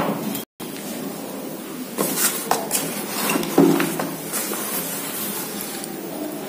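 Paper pages of a notebook being turned and handled, rustling with a few light clicks and one sharper knock in the middle, over a steady hiss.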